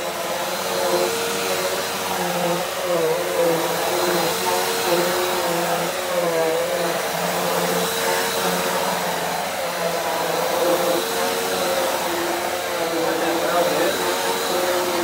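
A corded Hoover commercial upright vacuum cleaner running steadily as it is pushed over a carpet mat. Its motor whine dips briefly in pitch now and then.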